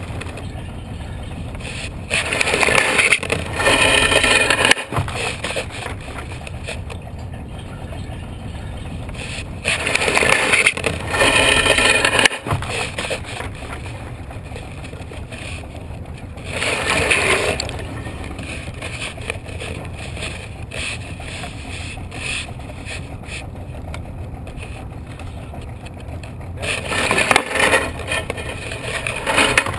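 Small boat's outboard motor running slowly with a steady low rumble, overlaid four times by louder bursts of rushing noise lasting one to three seconds each, the first about two seconds in and the last near the end.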